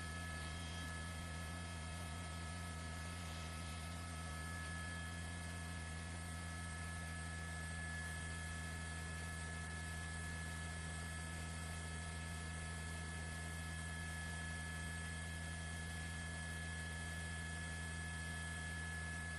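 Steady electrical hum with a faint hiss, unchanging, with no other sound over it.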